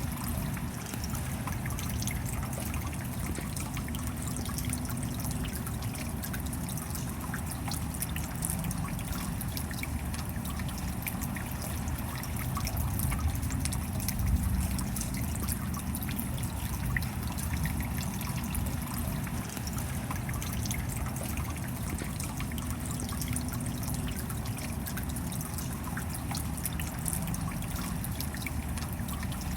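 Steady rain falling, an even hiss dotted with many small drop ticks, with water trickling and dripping.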